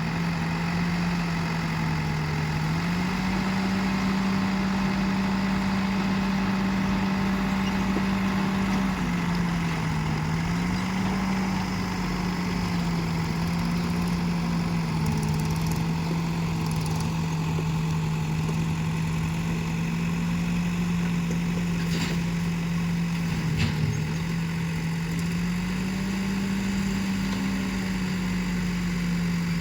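Diesel engine of a backhoe loader running steadily, its revs stepping up and down a little several times. Two short knocks are heard about three quarters of the way through.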